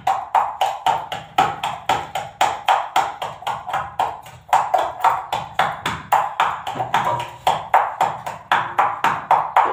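Metal spatula striking and scraping a metal cooking pan on the stove in an even, quick rhythm of about four ringing clinks a second.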